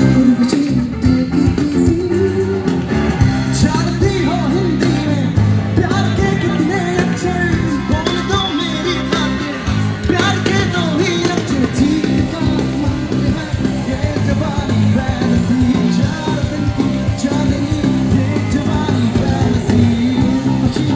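Loud music from a band: strummed guitar with a singing voice.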